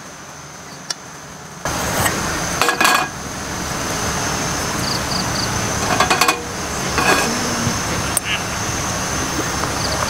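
A metal spoon clinks and scrapes against camp cookware while food is served from a pot, over a steady rushing noise that starts abruptly about two seconds in. A thin, steady high insect drone runs underneath.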